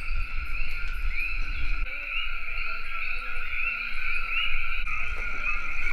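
Dense chorus of common coquí frogs calling, many overlapping two-note "co-quí" calls: a lower note followed by a short rising higher one. A low rumble lies under the first two seconds.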